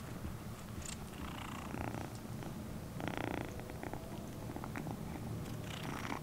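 Calico kitten purring steadily while being scratched under the chin, with a brief louder sound about three seconds in.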